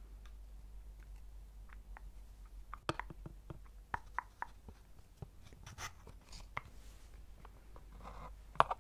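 Small wooden padlock and wooden money box handled close to the microphone: scattered light wooden clicks and taps, the loudest near the end, with a little soft rubbing.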